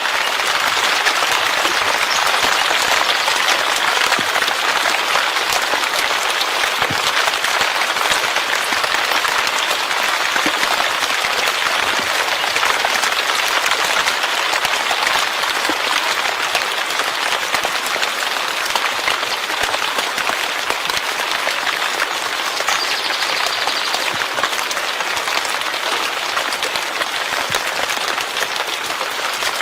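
Steady heavy rain falling, a dense, even wash of drops.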